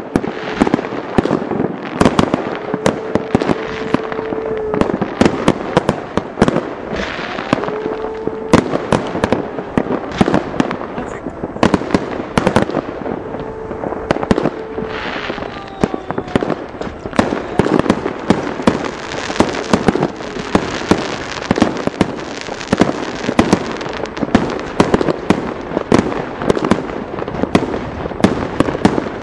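Aerial fireworks display: a dense, continuous barrage of bangs and crackling pops from shells bursting overhead. A steady held tone sounds three times, each for two to three seconds, in the first half.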